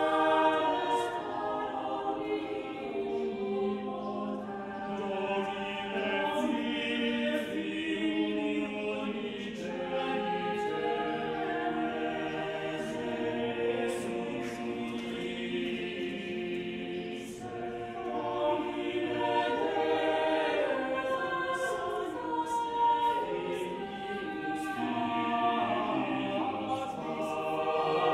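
Mixed-voice chamber choir of about a dozen singers singing a cappella in several overlapping parts, with long held notes and the hiss of sung consonants.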